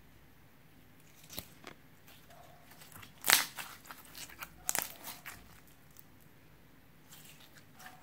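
Slime being pressed and stretched by hand, giving a few short, sharp pops and crackles. The loudest comes about three seconds in, with another strong one near five seconds.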